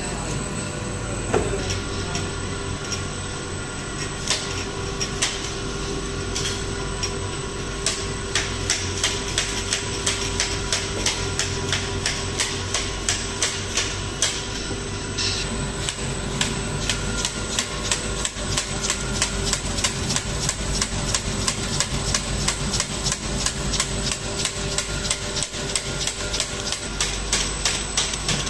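Packaging conveyor line with a laser coding machine running: a steady machine hum, joined from about eight seconds in by a quick, regular run of sharp clicks as cartons are fed through and coded.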